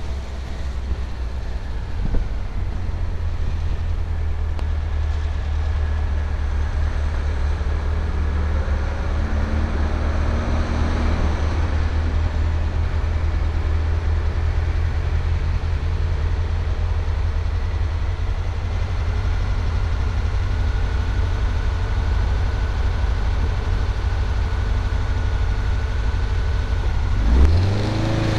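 Open-top buggy under way: a steady low rumble of engine, wind and road noise. A few rising engine tones come through about ten seconds in, and near the end the engine note climbs quickly.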